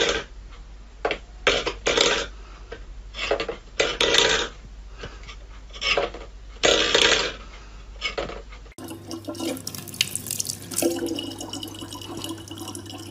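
A stainless steel bowl clattering and scraping on a wooden floor in a series of short knocks as a cat paws at it. About nine seconds in, this gives way to a kitchen tap running steadily in a thin stream into a plastic water jug.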